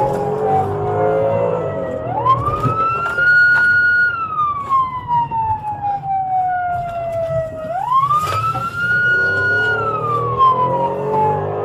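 Police car siren in wail mode, heard from inside the patrol car: twice it rises quickly, holds briefly at the top, then slides slowly back down over several seconds. Low engine and road rumble runs underneath.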